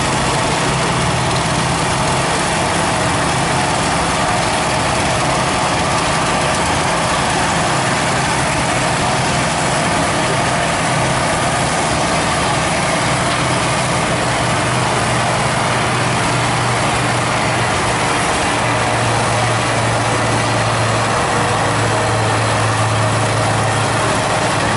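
International 1256's turbocharged six-cylinder diesel engine idling steadily. Its note drops slightly about three-quarters of the way through.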